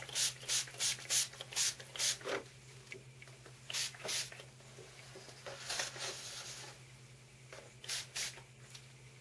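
Fine-mist pump spray bottle of blue shimmer paint squirting in short hisses: a quick run of about three a second for the first two seconds, then pairs of squirts near four and eight seconds in, with a softer, longer hiss about six seconds in.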